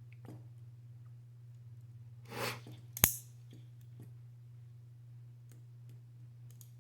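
Paper clip being worked in a Smith & Wesson handcuff lock: a soft scrape, then one sharp metallic click about three seconds in and a faint tick a second later, over a low steady hum.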